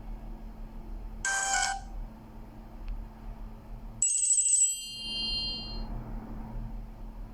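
Two short synthesized phone tones from a Fly E154 mobile phone's MTK synthesizer playing Nokia 7270 tones. A brief chord sounds about a second in, then a bright, high chime starts sharply about four seconds in and rings out for about a second and a half.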